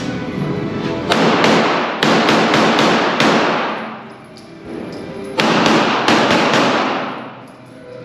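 Two rapid strings of gunshots, about half a dozen shots each and a couple of seconds apart, echoing heavily inside an indoor shoot house.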